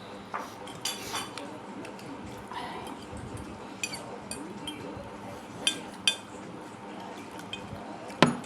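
Metal cutlery clinking against plates and bowls while eating noodles: scattered sharp clinks every second or two, the loudest near the end.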